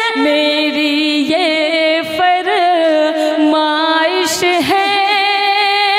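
A woman singing a Hindi geet in long, drawn-out notes with wavering vibrato and sliding pitch, over a steady held tone beneath.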